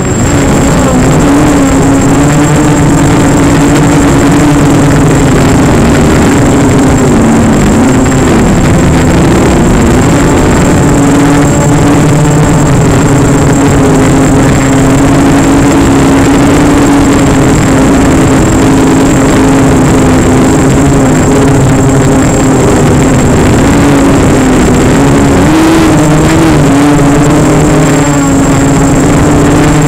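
Motor and propeller of an FPV model aircraft heard through its onboard camera: a loud steady hum that dips in pitch around eight seconds in and rises briefly near twenty-six seconds as the throttle changes, with a thin constant high tone above it.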